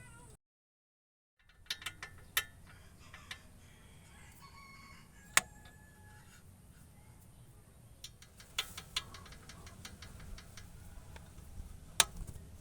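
Scattered sharp metallic clicks and clinks of hand tools and brake caliper parts being handled during work on a brake caliper slide pin, with two louder strikes, one about five seconds in and one near the end.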